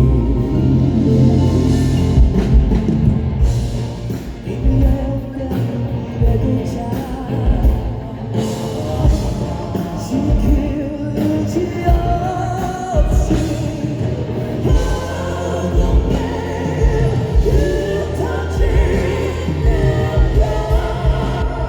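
Male vocal quartet singing a rock ballad live over a loud band, with heavy drums and bass under the held, gliding vocal lines.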